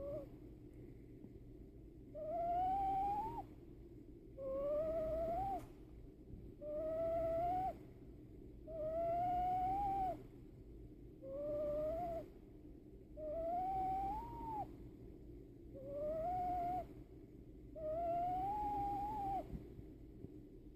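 Newborn baby's squeaky, whistling snore: about eight pitched, rising tones, one with each breath roughly every two seconds, over a steady low hum.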